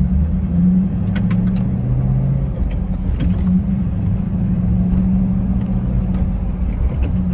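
Chevrolet Camaro SS V8 being driven, heard from inside the cabin: a steady low engine drone with road noise, and a few light clicks about a second in.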